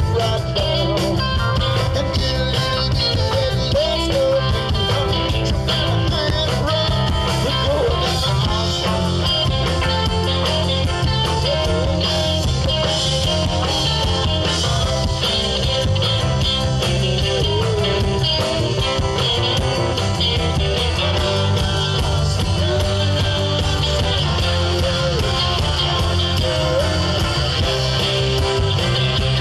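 A live rock band playing: electric guitars, bass and drums, with a steel guitar, sliding notes over a steady beat.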